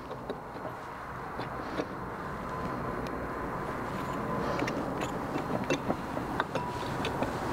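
Light metallic clicks and clinks as the cylinder and cam chain are worked onto a Vespa 3V scooter engine, over a steady background hum that slowly grows louder.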